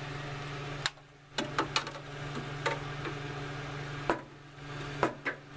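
Scattered sharp clicks and light clinks of hand tools and loose screws being handled inside a water heater's metal casing, over a steady low hum.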